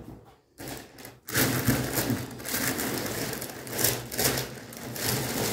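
Toy boxes and packaging being handled: a continuous crinkling, rustling noise that starts about a second in.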